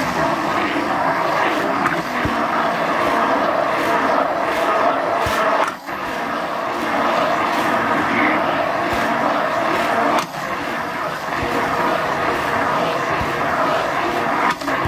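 Hand-held immersion blender running steadily in a thick mayonnaise sauce. The motor sound dips briefly twice, about six seconds in and again about ten seconds in.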